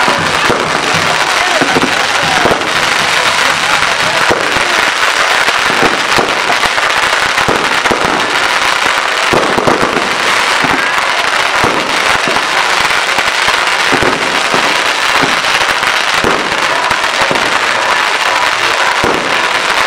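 Fireworks going off without a break: a loud, continuous crackling and hissing of sparks, with many sharp pops and bangs throughout.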